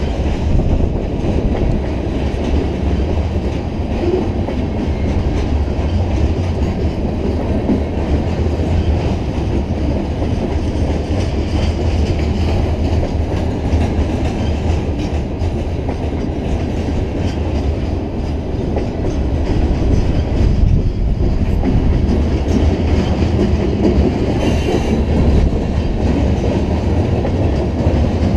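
Covered hopper cars of a long freight train rolling past close by: a steady rumble of steel wheels on the rails.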